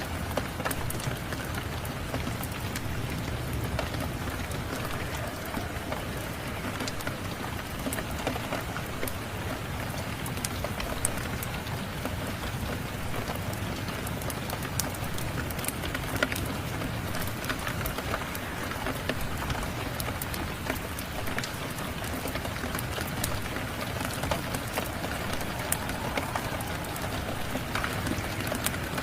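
Steady rain with scattered sharp crackles and pops of a wood fire burning in a fireplace.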